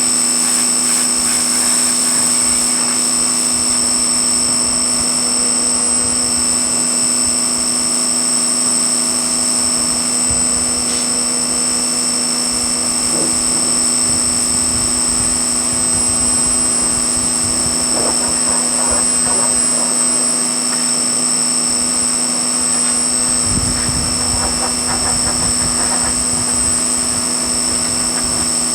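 Pressure washer running steadily with a constant motor drone and a steady high whine.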